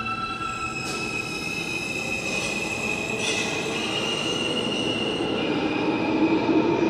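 R160 subway train pulling out of the station: its traction-motor whine steps up in pitch a few times as it accelerates, over wheel and rail noise that grows louder near the end.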